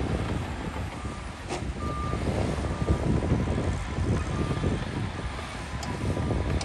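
Heavy earthmoving machinery running with a low, uneven engine rumble, while a reversing alarm gives short high beeps at intervals.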